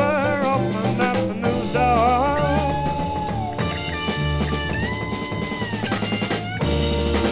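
Late-1960s blues-rock band playing from a vinyl record: drum kit and bass under a lead melody of bending, wavering notes, with no words.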